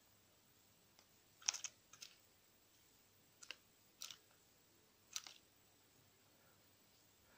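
A handful of sharp plastic clicks and taps, some in quick pairs, as a plastic tool prods the scorpion and knocks against its plastic tub and gravel, with near silence between them.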